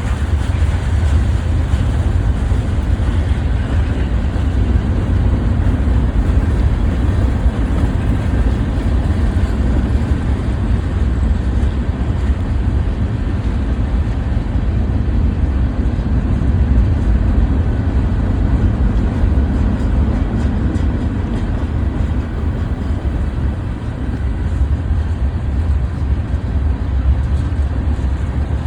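BNSF freight train cars rolling past on the rails, a steady low rumble.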